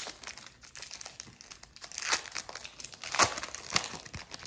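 Silver foil baseball card pack crinkling as it is handled and opened, in irregular crackles with two louder ones about two and three seconds in.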